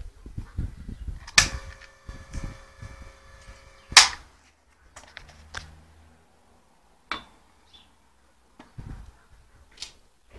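Handling knocks and metal clanks. A sharp clank about a second and a half in rings on for a couple of seconds, and another sharp knock comes at about four seconds, followed by a few scattered clicks.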